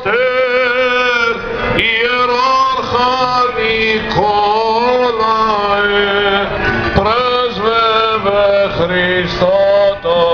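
A man chanting an Orthodox Byzantine hymn in long, winding melismatic phrases, with a lower voice holding a steady drone beneath. A couple of brief sharp clicks cut in.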